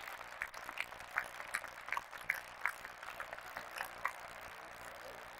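Scattered handclapping from the squash spectators, sharp claps about three a second over a low crowd murmur, dying out about four seconds in.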